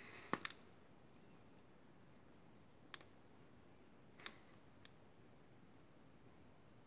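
Near silence broken by five faint, sharp clicks of a pen against paper during inking: two close together just after the start, one about three seconds in, and two more between four and five seconds in.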